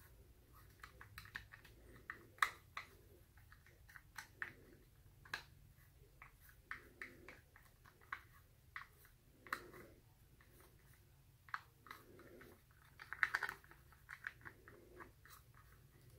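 Wooden stir stick scraping and tapping paint out of a small plastic cup: faint, irregular clicks and scrapes, with a louder rattle of them about 13 seconds in.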